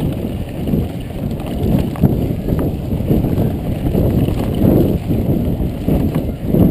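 Mountain bike ridden fast over a dirt trail, heard from a GoPro on the bike or rider: a constant low rumble of wind on the microphone and tyre noise, with an uneven patter of knocks and a few sharp rattles as the bike goes over bumps.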